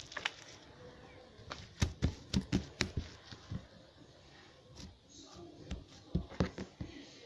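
Cloud slime made with the absorbent gel from a diaper being squeezed and pulled apart by hand, giving irregular soft crackles and pops, thickest a couple of seconds in and again near the end.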